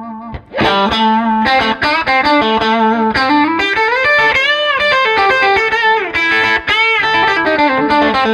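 Telecaster-style electric guitar played through a Fender Blues Junior IV tube amp, demonstrating its fat switch mid-range boost. After a short break about half a second in, it plays a lead phrase of picked single notes with several string bends.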